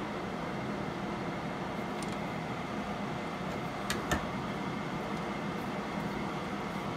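A steady hum, with a few light metallic clicks from a lathe's three-jaw chuck being tightened with its chuck key; the sharpest clink comes about four seconds in, as the key comes out.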